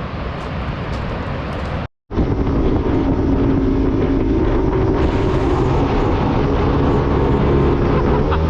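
Sport Jet-powered jet boat engine running steadily with wind on the microphone. The engine's pitch begins to rise near the end as it is throttled up.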